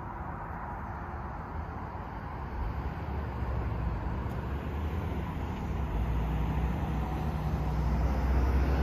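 Road traffic with a steady low hum. A car's engine and tyres grow louder as it approaches and passes close by near the end.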